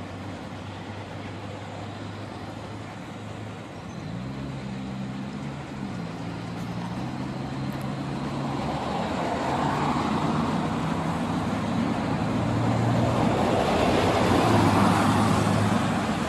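A steam tank locomotive and its coaches approaching along the track, the train's running noise growing steadily louder through the second half. A few seconds in, a low droning hum with a few steady tones that shift in pitch.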